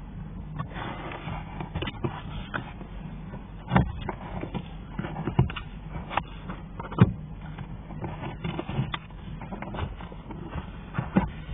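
Irregular plastic clicks, knocks and scrapes from hands working the interior trim, clips and cabin filter housing in a Smart Fortwo 451's footwell, over a steady low hum. The sharpest knocks come about four and seven seconds in.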